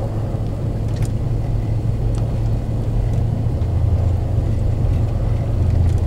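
Interior noise of a vehicle driving on a snow-covered road: a steady low engine and road drone that comes up suddenly at the start and holds.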